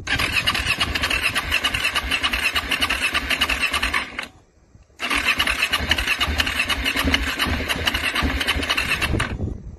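KTM motorcycle engine being cranked over by its electric starter in two attempts of about four seconds each, with a short pause between. It churns over laboriously with a fast, even beat and stops abruptly each time without catching.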